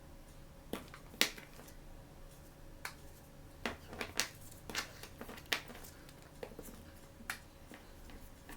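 Toy blind-box packaging being handled and opened: irregular sharp clicks and crackles of plastic and cardboard, the loudest about a second in, over a faint steady hum.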